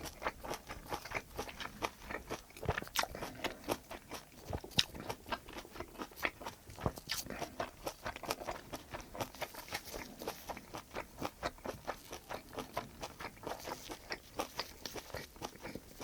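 Close-miked chewing: an irregular run of wet mouth clicks and soft crunches, several a second.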